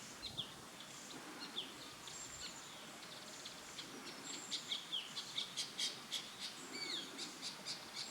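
Ashy drongo calling: short whistled and falling notes at first, then a quicker run of sharp, clicking high notes in the second half.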